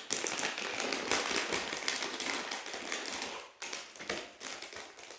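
Plastic packaging crinkling as it is handled and unwrapped, steady for about three seconds, then a few separate sharp taps and rustles.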